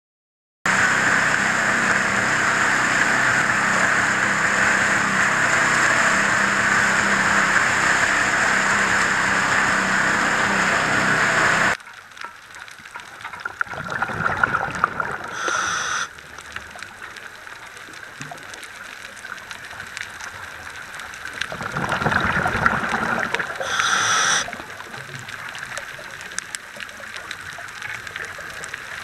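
Underwater recording: a loud, steady rushing noise that cuts off abruptly about twelve seconds in, then a quieter water hiss broken twice by the rushing burble of a scuba diver's exhaled bubbles.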